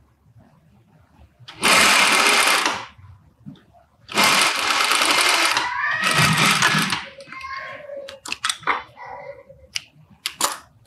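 Industrial lockstitch sewing machine stitching in three short bursts of a second or two each, the last two almost run together. Near the end come a few light clicks and snips as the thread is trimmed with scissors.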